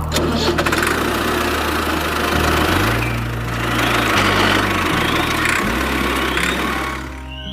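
Engine running steadily with a low drone that shifts pitch several times, under a dense rattling noise.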